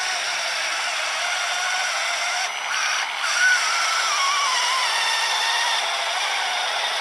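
High-pitched whine of the small electric motors on a radio-controlled truck and its 3D-printed snowblower, running over a steady mechanical hiss. About three and a half seconds in, one whine jumps up in pitch and then slides down over the next second and a half.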